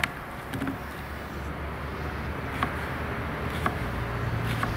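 Chef's knife slicing a red onion on a plastic cutting board: a few separate sharp taps of the blade on the board, spaced irregularly, over a steady low background rumble.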